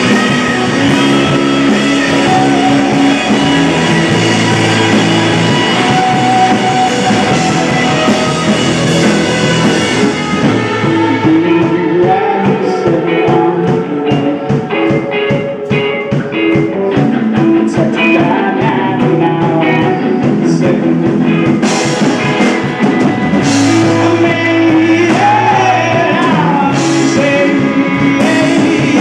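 Live rock band playing a song with guitar, drums and singing.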